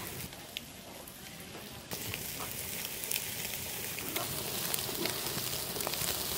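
Spice-marinated rohu fish pieces on metal skewers sizzling over an open wood fire: a steady hiss with scattered crackles and pops. The hiss gets louder about two seconds in.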